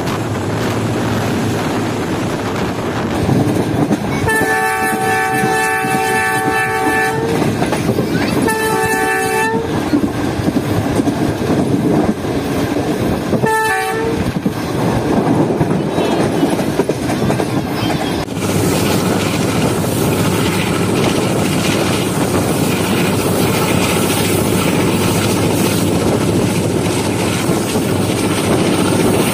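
Diesel locomotive's multi-tone air horn sounding three times: a long blast about four seconds in, a shorter one soon after, then a brief toot. Under it runs the steady rumble and wheel clatter of an express train at speed.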